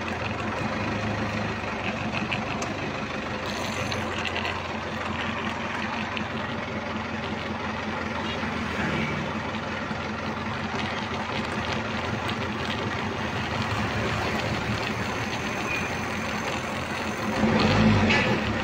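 Forklift engine running steadily at idle, heard from the driver's seat, briefly louder near the end.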